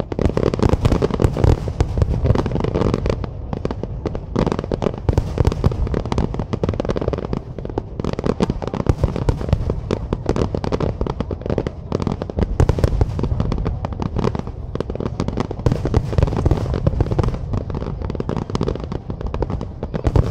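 A fireworks barrage: many aerial shells bursting in quick succession, the bangs overlapping into a dense, continuous stream of booms and crackling.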